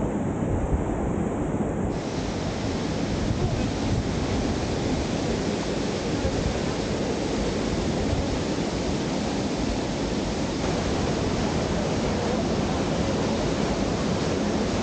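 Water pouring over a weir and churning into white water below it, a steady rushing noise; about two seconds in it gets more hiss.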